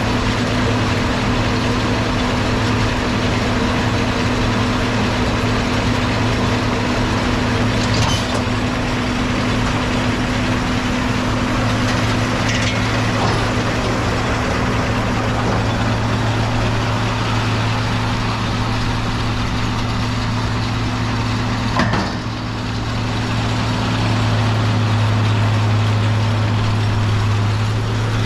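John Deere 4230 tractor's six-cylinder diesel engine running steadily under load while pulling a round baler, with a few sharp clicks or knocks from the machinery. About three quarters of the way through the sound dips briefly, then the low engine hum comes back stronger.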